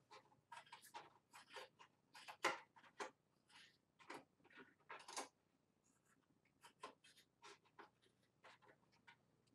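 Craft shears snipping through a two-layer Worbla thermoplastic sheet: a run of short, faint cuts at an uneven pace, with a brief pause about six seconds in.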